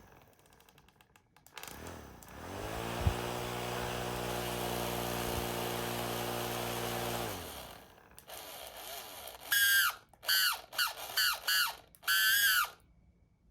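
Small DC motor driving the homemade helicopter's rotor: it spins up with a rising whine, runs steadily for about five seconds, then winds down. Later come five or six short, high squeals.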